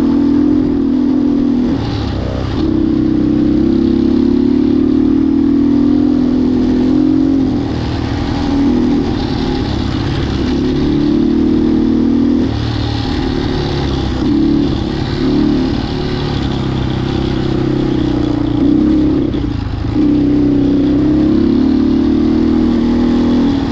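Vehicle engine running steadily under way, its tone easing off briefly several times.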